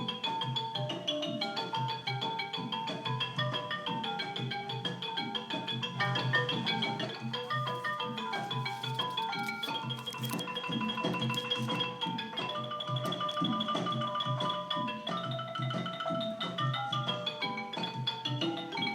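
Background music: a quick melody of short struck notes over a steady low pulse.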